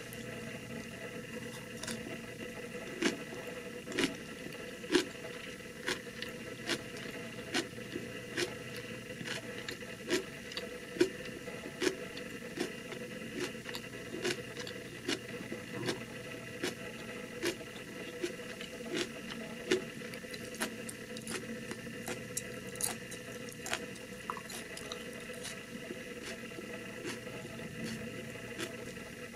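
Close-miked chewing of crisp Japanese pickles (tsukemono): a steady rhythm of crunches, a little more than one a second.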